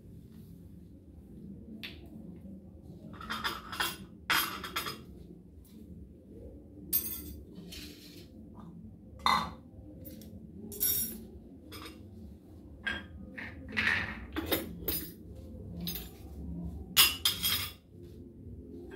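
Crockery and cutlery being handled on a tiled counter: irregular clinks and clatters, a dozen or more short knocks, the loudest near the end.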